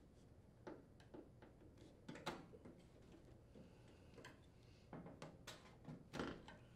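Faint, scattered clicks and taps of a putty knife prying at the plastic front grille of a Frigidaire air conditioner. Louder snaps come about two seconds in and again near the end.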